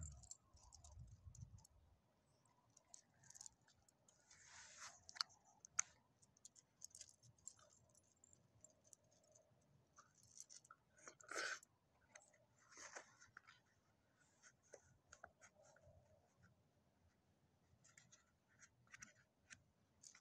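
Faint scattered clicks and scrapes of a dog moving on gravel and eating small cracker pieces, with a louder scrape about five seconds in and another a little past the middle.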